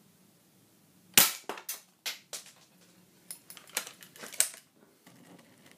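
A single sharp shot from a .22 air rifle fired at a hard disk drive about a second in, followed by a string of about eight lighter clicks and knocks over the next three seconds.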